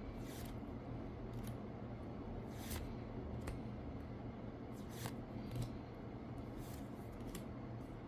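Magic: The Gathering cards being flipped off the front of a hand-held deck one at a time: short slides and soft snaps of card against card, roughly one a second, over a low steady hum.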